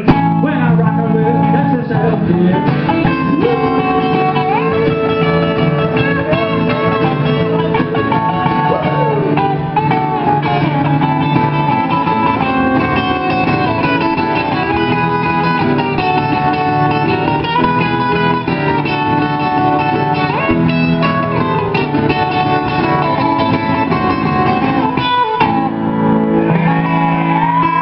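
Live band playing an instrumental guitar break: an electric lead guitar with bending notes over a strummed acoustic guitar. The music drops out briefly near the end before picking up again.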